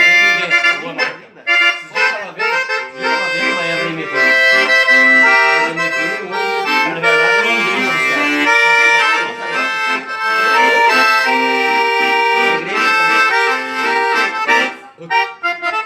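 Accordion playing a melody over sustained chords, with a short pause between phrases near the end.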